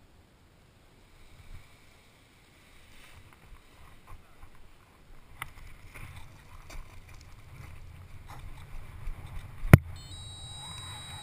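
Wind rushing over the microphone, growing stronger as the paraglider pilot runs down the launch slope and takes off, with scattered footfalls and rustling, and one sharp knock near the end. Just after the knock, a paragliding variometer starts beeping in high stepped tones.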